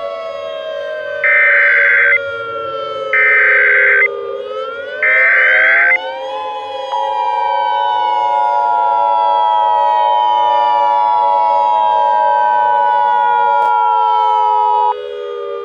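Emergency Alert System alert tones over a civil defense siren. First come three short bursts of the digital header, each about a second long, then the steady attention tone for about eight seconds. Under them the siren wails, its pitch falling, rising again about five seconds in, then falling slowly.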